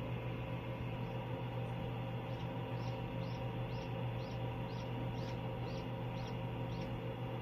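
Hatching Indian Runner duckling peeping: a run of short, high, falling peeps about two a second, starting about two seconds in, over the steady hum of an incubator.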